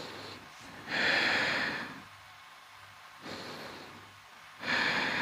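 A person breathing slowly and deeply close to the microphone, yoga-style: a loud breath about a second in, a softer one just after three seconds, and another loud one near the end, each about a second long.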